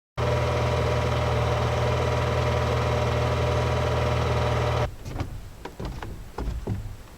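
A motor running steadily with an even hum, starting abruptly and cutting off about five seconds in, followed by several sharp clicks and knocks.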